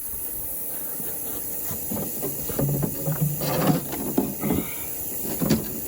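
Scattered knocks and clicks of battery cables and clamps being handled while a second starting battery is hooked up, over a steady hiss.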